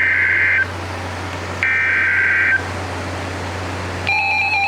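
Two roughly one-second bursts of the Emergency Alert System's SAME digital header, a screeching two-tone data warble, about a second apart. This is the coded header that opens a new weather radio alert. About four seconds in, a steady alert attention tone begins.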